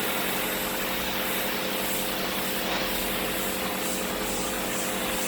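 Kärcher electric pressure washer running steadily, its motor humming under the hiss of the water jet.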